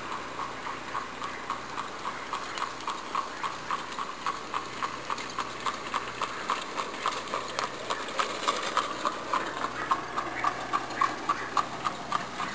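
Horse's hooves clip-clopping on a paved road as it trots up pulling an Amish buggy, a steady beat of about three hoofbeats a second that grows louder as it comes near.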